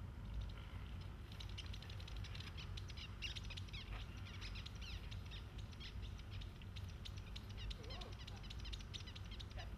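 Small songbirds chirping and twittering rapidly and without pause, starting about a second in, over a steady low rumble.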